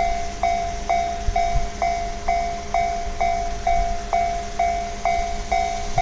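Japanese railway level-crossing warning bell ringing, an electronic ding repeated about twice a second, with a low rumble beneath it.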